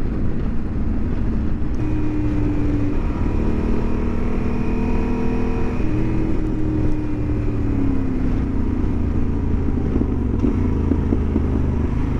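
Motorcycle engine running under way over a steady rush of wind noise on the microphone; the engine note holds a pitch, then shifts to a new one several times as the bike changes speed.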